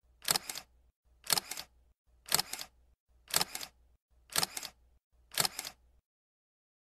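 A camera shutter sound effect, six times about once a second, each a quick double click.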